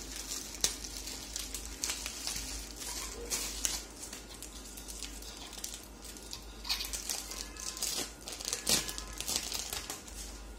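Plastic wrapping crinkling and rustling in irregular bursts as it is handled and pulled off a monitor stand, with a few sharp crackles.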